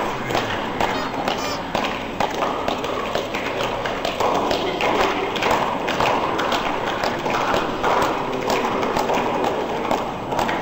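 Murmur of many voices in a large hall, with frequent scattered knocks and thumps.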